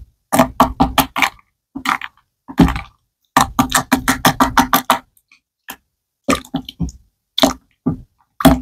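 Wooden spoon stirring a watery slime mixture in a glass bowl, making short wet strokes and clicks against the glass. The strokes come in short runs, a quick series of about five or six a second in the middle, with dead silence between the runs.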